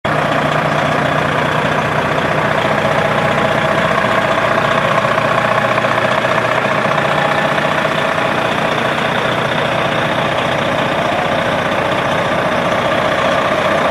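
An engine running steadily at idle, a constant hum with no change in speed.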